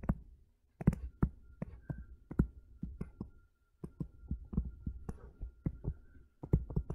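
Stylus tapping on a tablet screen while handwriting, an irregular run of light taps.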